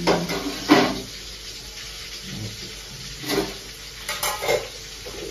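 Steel utensils and vessels clinking and clattering as a steel bowl is handled, with a few sharp knocks, the loudest just under a second in. Underneath, fish sizzles steadily in a frying pan.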